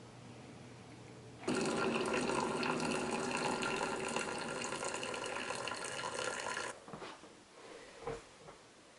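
Keurig single-serve coffee maker running and pouring a stream of hot water into a ceramic mug. The sound starts suddenly about a second and a half in and cuts off about five seconds later. A few light knocks follow.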